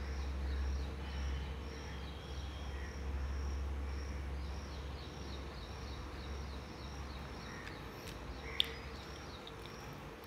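Quiet room background: a steady low hum that fades out about seven seconds in, under a regular high-pitched chirping that repeats a few times a second. A single sharp click, like a metal spoon against a steel bowl, comes about eight and a half seconds in.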